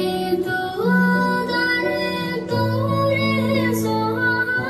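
Music with a high voice singing a slow melody in long held notes.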